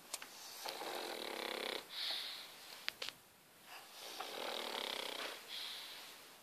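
Pug snoring: two slow rattling snores about three seconds apart, each followed by a short airy hiss.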